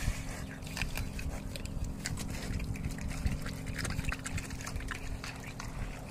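Pigs slurping and sucking up watery slop from a feeding pan, a steady run of irregular slurps and smacks.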